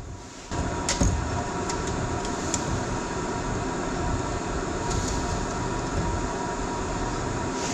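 A steady mechanical rushing noise comes on suddenly about half a second in and runs on evenly, with a faint steady hum in it.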